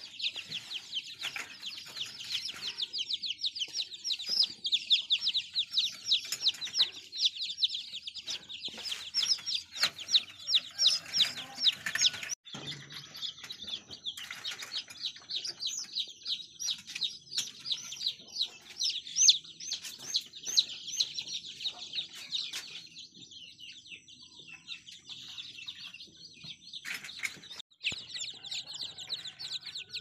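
A brood of newly hatched chicks peeping continuously: a dense chorus of rapid, high-pitched cheeps, with a few clicks from handling.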